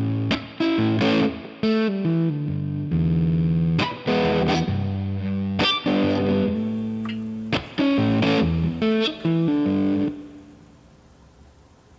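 Background music: distorted electric guitar playing choppy blues-rock chords and riffs over bass. The music ends about ten seconds in.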